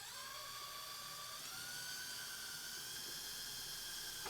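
Power drill with a 1/8 inch bit drilling out the rivet that holds the door's sliding arm. It makes a steady whine that steps up in pitch about a second and a half in.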